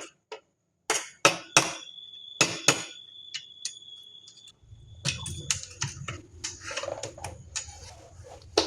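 A spoon clinking and scraping against a bowl and plate as leftover curd is spooned out and spread, a string of sharp taps. A low steady hum comes in about halfway.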